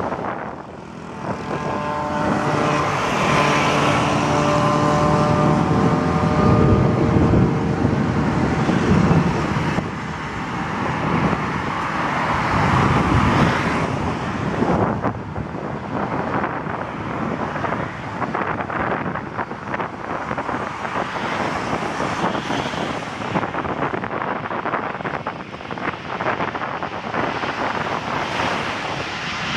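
A passing vehicle's engine whine sliding down in pitch over the first several seconds, then a steady rushing noise with wind gusting on the microphone. Under it is the growing rumble of a twin-engine jet airliner on final approach.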